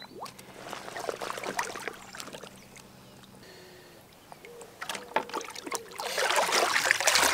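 Lake water sloshing and splashing around a large common carp held by hand in the shallows for release. Irregular small splashes and drips come first, then a quieter stretch, then a louder burst of splashing near the end.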